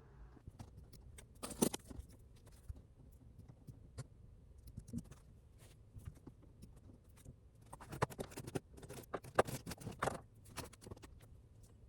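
Light clicks, taps and scrapes of small objects being handled, with a short cluster about a second and a half in and a busier run of them from about eight to ten seconds.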